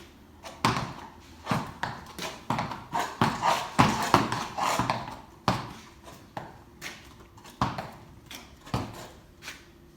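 A horse's hooves knocking and shuffling on a hard floor in a dozen or so irregular steps, most crowded together from about three to five seconds in, as the horse shifts its weight and fidgets.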